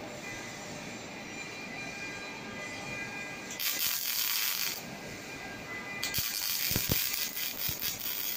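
MIG welding arc from a Fanuc S-430iW welding robot's torch, crackling and hissing on steel. It crackles in two stretches: a short one about three and a half seconds in, and a longer one from about six seconds in.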